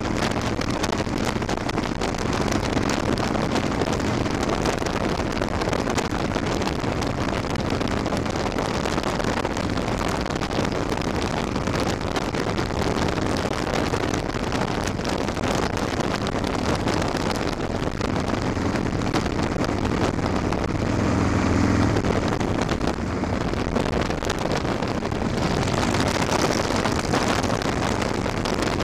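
Wind rushing over the microphone of a cruiser motorcycle at highway speed, over the bike's low, steady engine drone. The engine tone swells briefly about three quarters of the way through.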